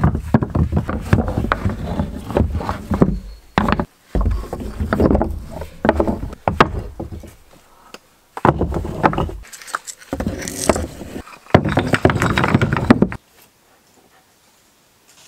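Large river stones being handled and set down on a wooden plank floor: stones clacking against each other and thudding on the boards, in five bursts of several seconds each.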